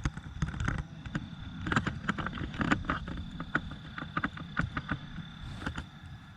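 Irregular knocks and rustles of footsteps and handling of the recording phone, over a low rumble and a faint steady high-pitched tone.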